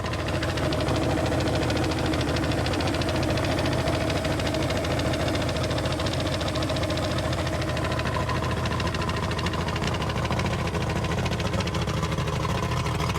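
1999 Johnson 150 Ocean Pro V6 two-stroke outboard motor running steadily. It seems to be running on five cylinders, because one cylinder has zero compression.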